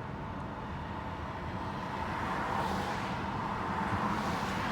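Street traffic noise: cars passing on the road, a steady rush of engines and tyres that swells and fades.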